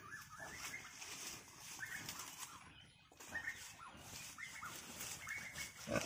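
Pig chewing and crunching green corn stalks and leaves, with an irregular crackle and rustle of the leaves as it feeds. Short high chirps come now and then over it.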